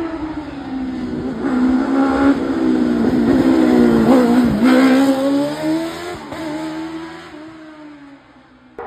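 Single-seater hillclimb racing car's engine passing close through a bend. Its note sinks as the car comes through the corner, then climbs as it accelerates away up the hill, loudest about four seconds in and fading toward the end.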